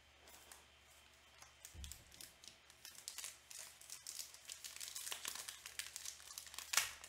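Plastic wrapping on Panini football card packs being torn open and crinkled by hand: a run of crackles that grows denser and louder from about two seconds in. A soft low thump comes near the two-second mark.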